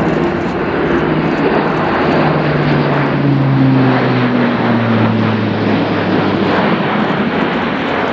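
Airbus A400M Atlas flying past with its four Europrop TP400-D6 turboprops at high power: a loud propeller drone that peaks around the middle as the propeller tones drop in pitch with the pass.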